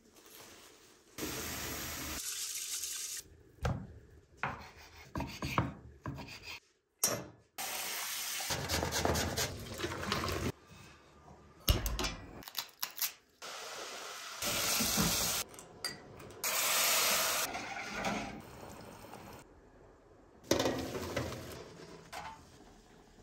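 Kitchen work sounds in quick succession: water running in several stretches of steady hiss, with knocks and scrapes of pots and utensils between them.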